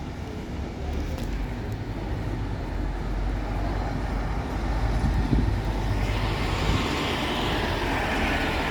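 A diesel vehicle's engine running close by with a steady low rumble, gradually getting louder. A rushing hiss builds from about six seconds in.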